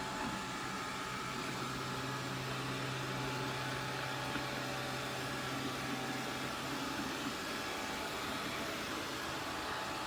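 Shark ION R75 robot vacuum running: a steady motor and suction noise with a few steady tones on top. A lower hum joins about a second and a half in and drops away after about seven seconds.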